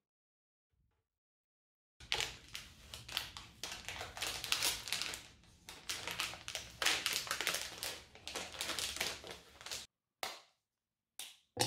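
Dark chocolate bar's wrapper crinkling and rustling in dense, irregular crackles as it is peeled off by hand. Near the end come a few short, sharp snaps as the bar is broken into pieces over a glass bowl.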